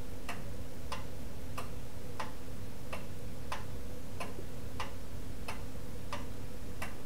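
Soft, evenly spaced ticking, about three ticks every two seconds, over a faint steady hum.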